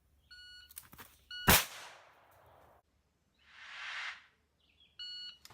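Electronic shot-timer beep, then a single gunshot about a second and a quarter later, a sharp crack with a long echoing tail; a soft whoosh follows midway, and a second timer start beep sounds near the end.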